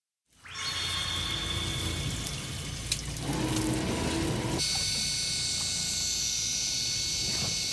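Sea water rushing and splashing past a moving boat's hull, over a steady low noise from the boat, starting a moment in. The sound changes at two cuts, and in the second half a few steady high whines sit over the water noise.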